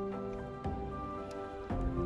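Background music: held chords with a low beat, a new chord struck about once a second.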